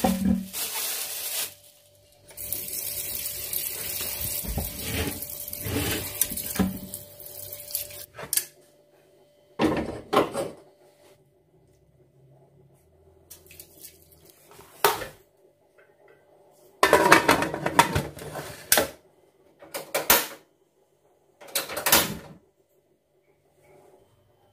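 Water running from a tap into a metal pressure-cooker pot of raw chicken feet being washed in a sink. This is followed by a series of separate clanks and knocks of the pot being handled, the busiest cluster about two-thirds of the way through.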